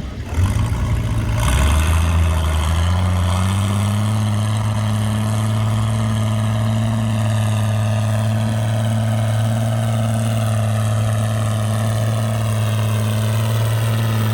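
An engine starting about half a second in, its pitch climbing over the next few seconds before it settles into a steady run.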